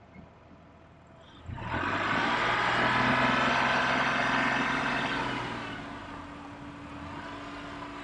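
Car engine starting up about a second and a half in, running loud for a few seconds, then settling into a steady lower hum as the car moves off.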